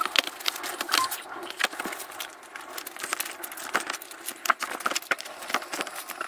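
Printed stickers being peeled off their backing sheet: an irregular run of small crackles and sharp ticks.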